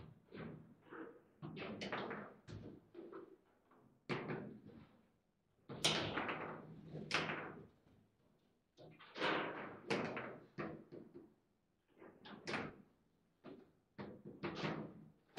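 Table football in play: the ball and the plastic player figures knocking against each other and the table walls, with rods being shot and slammed, as a string of irregular sharp knocks that each ring briefly. The loudest hits come about six, seven, nine to ten and twelve seconds in.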